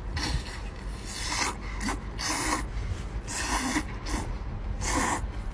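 Rough rasping, scratchy noises in short, irregular bursts, about one a second.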